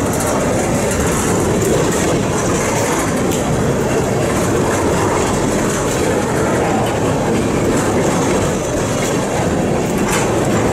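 Freight train of tank cars rolling past: a loud, steady rumble of steel wheels on the rails, with scattered clicks as the wheel sets cross rail joints.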